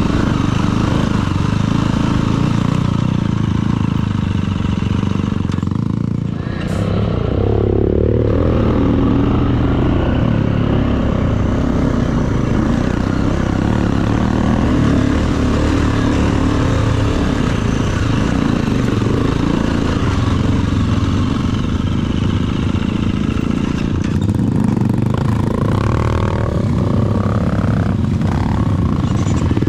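KTM enduro dirt bike's engine running under throttle on a rocky trail, with rocks and parts clattering. The engine eases off briefly about six seconds in, then revs back up.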